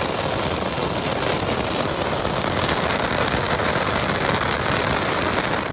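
Car-shaped ground firecracker burning: a steady, loud hissing rush as it sprays a jet of sparks, with crackling running through it. It tails off at the very end.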